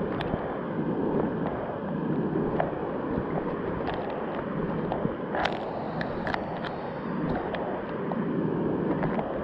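Shallow stream babbling over pebbles, picked up right at the water surface, as a steady rushing with scattered sharp ticks and plinks.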